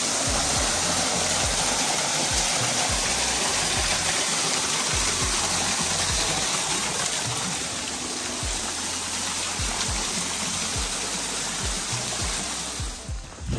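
Small waterfall splashing onto rocks and into a shallow pool: a steady rushing hiss that eases off about a second before the end.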